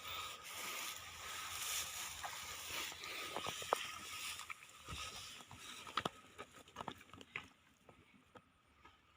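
Shallow water sloshing and swishing, then a scatter of small splashes and knocks that thin out near the end.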